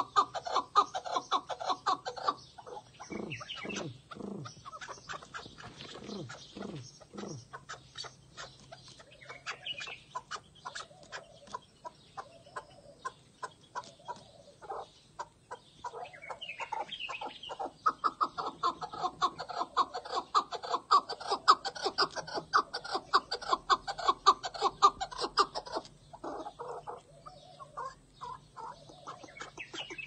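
Chukar partridge calling: long runs of rapid clucking notes, several a second, loudest at the start and again in a long run past the middle, with a few sliding notes in the first quarter.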